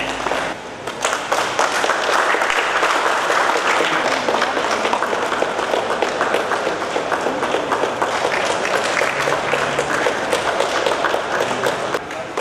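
A small group of people clapping, a dense, steady patter of many hand claps that starts about a second in.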